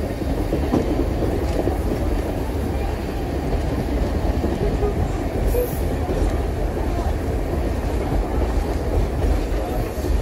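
Heritage passenger train running along the track, heard from an open carriage window: a steady rumble of wheels on rail with a few faint clicks over rail joints, and wind buffeting the microphone.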